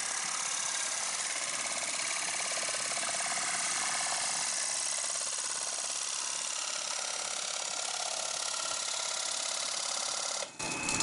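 Small bench metal lathe running steadily, turning the wooden disc of a kite reel. The sound breaks off sharply for a moment near the end.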